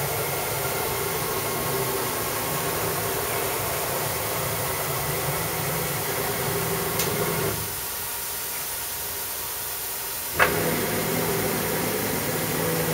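Wet bench robot transfer arm's drive motors humming with several steady tones over a hiss as the arm lowers the wafer carrier into the quick-dump rinse tank. The hum stops about seven and a half seconds in and starts again with a sharp click about ten and a half seconds in.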